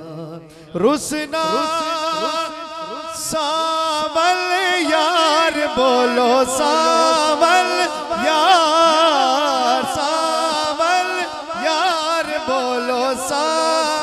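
A male naat reciter sings a kalam through a microphone and PA. His voice comes in loudly about a second in with a rising glide, then holds long, wavering, ornamented notes.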